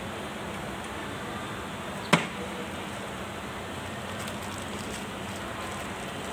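Steady workshop background noise with one sharp knock about two seconds in, as parts are handled on the workbench; faint light crinkling follows as a plastic-wrapped oil seal is handled.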